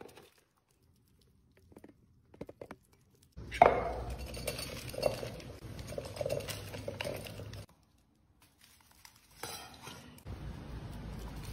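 Pets eating from dishes: faint clicks as a cat eats wet food, then a duck's bill pecking and rattling kibble in a ceramic bowl, with clinks against the dish. The sound starts and stops abruptly several times.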